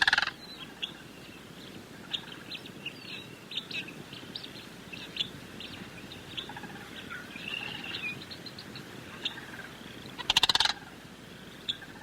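Sandhill crane's loud rolling, rattling call, once at the start and again about ten seconds in, with many short high chirps scattered in between.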